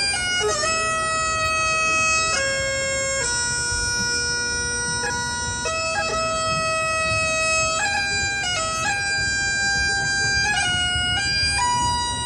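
Bagpipes playing a slow melody of long held notes over a steady drone, with quick grace notes flicking between the notes.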